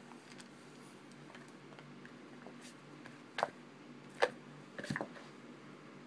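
A few light taps and clicks in the second half, the loudest about four seconds in, over a faint steady low hum.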